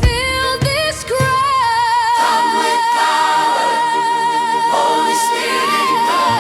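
Reggae gospel song, sung: the voice slides through a short phrase, then holds one long note with vibrato for about four seconds. The drums and bass mostly drop out under it, leaving a sparse, near a cappella backing.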